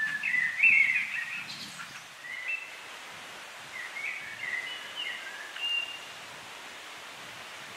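A songbird singing two phrases of clear, warbled whistled notes, the second starting about four seconds in, over a steady background hiss.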